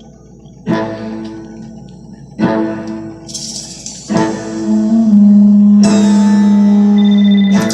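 Guitar music: three chords struck about a second and a half apart, each ringing out, then a loud low note held for nearly three seconds.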